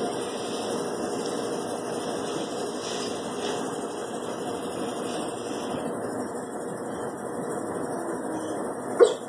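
Steady machine hum with a faint held tone, and a brief sharp sound near the end.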